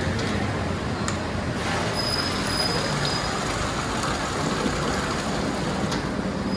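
Steady rushing background noise, even throughout, with no clear separate events.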